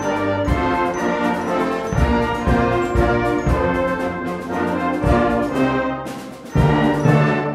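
Brass band music: sustained brass chords moving from note to note. It fades briefly near the end, then a loud new chord comes in.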